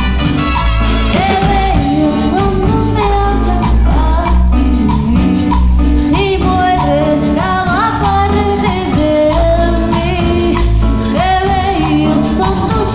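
A live Latin dance band playing loud through PA speakers, with congas, drum kit and keyboard under a sung lead vocal and a steady dance beat.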